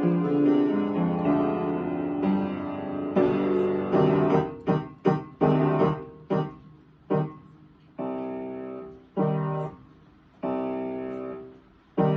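Upright piano played: flowing held chords at first, then short detached chords about four seconds in, then four single chords struck and left to ring, each about a second and a half apart.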